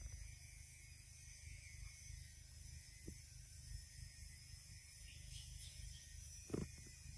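Faint steady low hum and hiss, with a soft short knock about three seconds in and a louder one near the end, as a baby macaque gnaws and handles a mango.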